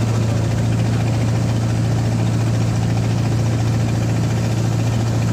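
Boat engine running at a steady speed, a constant low drone with a hiss over it.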